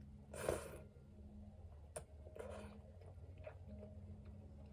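Close-up eating sounds of noodles taken with chopsticks: chewing, with a short loud burst about half a second in, a sharp click near two seconds and a smaller burst around two and a half seconds.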